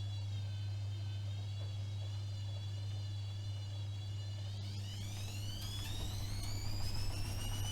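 AEG Öko-Lavamat 76730 washing machine's drum motor running with a high whine that wavers in pitch over a steady low hum. About four and a half seconds in, the whine starts rising smoothly as the drum speeds up.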